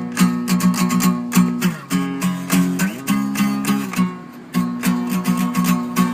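Guitar being strummed in a steady rhythm, the chord changing every second or two as the song's introduction.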